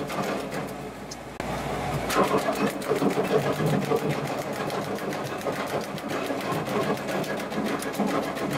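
TMG-TFL42 tractor PTO-driven branch logger chopping fed branches into chunks: a fast run of chopping clicks over the steady running of the tractor engine at about 2,000 RPM. The loudness jumps suddenly about a second and a half in.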